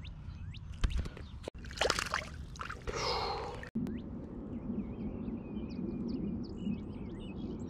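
Water splashing and sloshing in a few short bursts with sharp clicks, cut off twice for an instant. After that comes steady low outdoor noise with faint high chirps.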